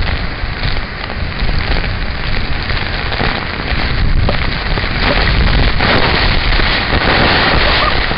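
Magdapio Falls pouring down directly onto the raft and the people under it: a loud, steady rush of falling water and spray.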